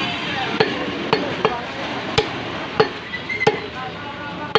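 Heavy butcher's cleaver chopping beef on a round wooden chopping block: about seven sharp chops at uneven intervals.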